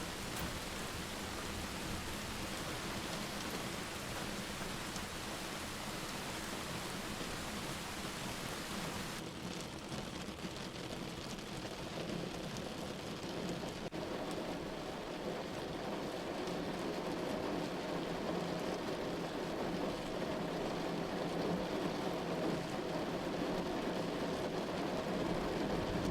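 Steady rain falling as an even hiss. About a third of the way in the rain abruptly turns duller, losing its high hiss. Through the second half a low rumble of thunder builds, growing louder toward the end.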